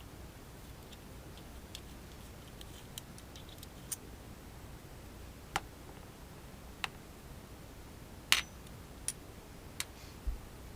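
Small metal parts of an RDTA vape tank clicking and tapping as it is taken apart by hand: scattered light clicks, faint at first, then sharper, with the loudest click about eight seconds in.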